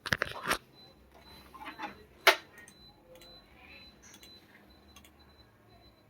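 Handling noises: a quick clatter of clicks right at the start, a short rattle, then one sharp loud click a little after two seconds, followed by a few faint ticks.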